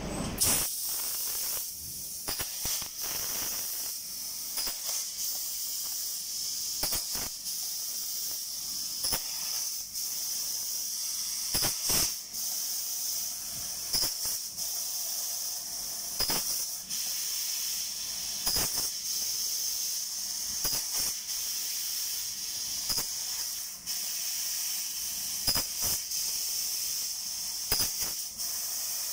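6000 W IPG fiber laser cutting 5 mm aluminium sheet: a steady high hiss from the assist-gas jet at the cutting head, broken by irregular sharp clicks and pops every second or two as the cut throws sparks.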